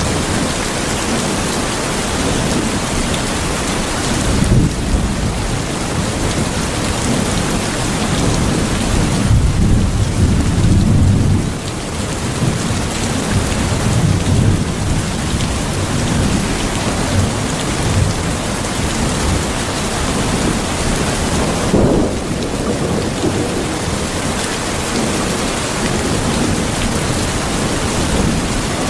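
Heavy rain falling steadily, with low rolling rumbles of thunder swelling up several times, strongest about a third of the way in.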